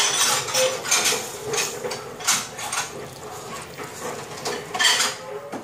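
Pork and bitter gourd broth bubbling at a boil in a stainless steel pot, giving irregular pops and crackles.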